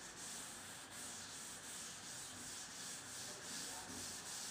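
A chalkboard duster wiping chalk off a blackboard in quick back-and-forth strokes: a soft, rhythmic scrubbing hiss, about three strokes a second.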